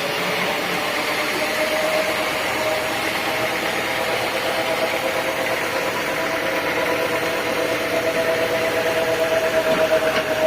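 Sawmill machinery running steadily, a motor-driven saw with a constant hum and a mechanical whir; it pulses a little louder near the end.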